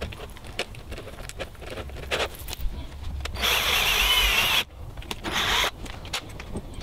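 Cordless drill-driver running in two short bursts, a longer one about three and a half seconds in and a briefer one about a second later, driving screws into the van's side wall by the window. Before that there are light clicks and rustling as the curtain and its track are handled.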